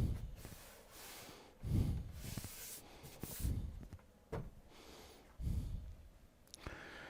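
A person breathing heavily through the nose close to the microphone, in short noisy breaths about every one and a half to two seconds. There is a single sharp click a little past four seconds.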